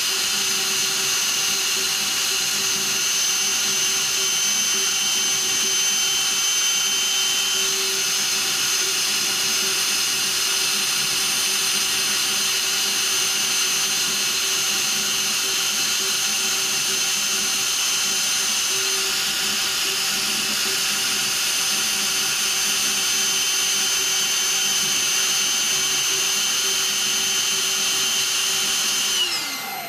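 High-speed spindle of a GRAVOS M3K260 CNC mill, its axes driven by three-phase steppers, running steadily with a fine engraving cutter cutting lettering into a metal plate. It makes a steady high whine with several held tones. Near the end all the tones slide down in pitch as the spindle spins down.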